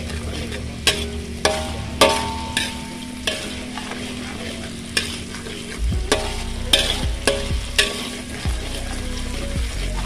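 Metal spatula stirring chicken pieces frying in oil in a steel wok: a steady sizzle, broken by about ten sharp, ringing clanks where the spatula strikes the wok.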